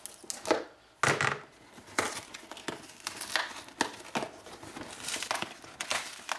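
Cardboard shipping box being opened by hand: a folding knife cutting along the top seam, then the cardboard flaps crinkling and rustling as they are pulled and the box is turned. The irregular scrapes and crackles are sharpest about a second in.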